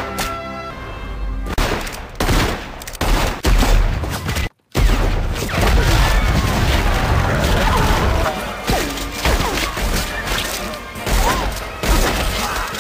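Film action soundtrack: a series of gunshots, then a sudden large explosion a little under five seconds in, followed by a long, heavy rumble, with music underneath.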